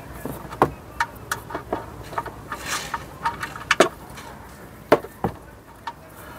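Ratchet and socket on a steel sump plug: irregular clicks and metallic knocks, with a short rasp about three seconds in. The plug turns too easily for the ratchet to hold, so the ratchet is lifted off and refitted rather than ratcheted.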